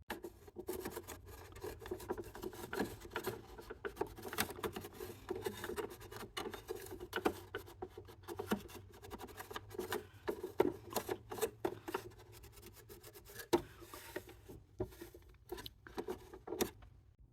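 Irregular scratchy rubbing and scrubbing strokes as dust and lint are cleaned out of a sewing machine's dirty bobbin area under the removed needle plate.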